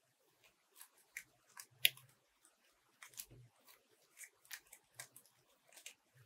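Faint, scattered crinkles and clicks of foam fruit-protection net being handled and wrapped around a rolled foam-net flower centre, with one sharper click about two seconds in.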